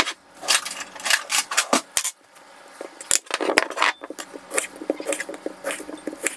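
Feijoas being set down and halved with a kitchen knife on a wooden chopping board: irregular short knocks and clicks of the blade and fruit against the board.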